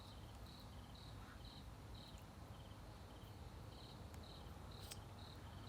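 Crickets chirping faintly: one gives short chirps about twice a second, and another gives quicker three-pulse chirps a little lower in pitch.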